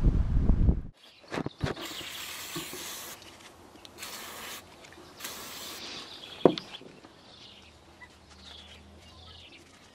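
A few clicks and three short, high hissing bursts, then a single sharp knock. After that come repeated short falling chirps of small birds.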